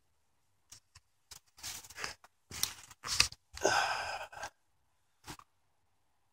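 Irregular rustling and scuffing from a handheld camera being moved and rubbed against clothing, in short bursts of brushing noise with gaps between them.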